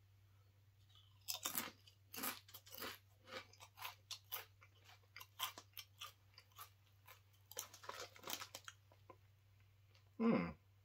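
Close-up crunching and chewing of a Doritos tortilla chip, in irregular bursts of crisp crunches from about a second in until about nine seconds. A brief louder noise comes near the end.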